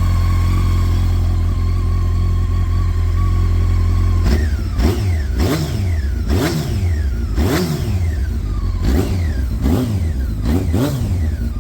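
Honda CBR900RR's carbureted inline-four idling steadily, then, about four seconds in, blipped repeatedly, the revs rising and falling roughly once a second. The engine is warming up after its carburettors were bench- and vacuum-balanced.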